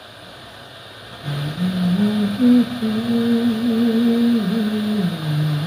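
A man humming a slow tune, holding one steady note after another from about a second in. Under it, a hot-air rework gun blows with a steady hiss as it heats an IC on a TV T-con board for desoldering.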